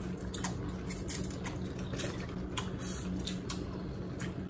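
People eating noodles with chopsticks: short, irregular wet slurps and mouth smacks over a low steady hum.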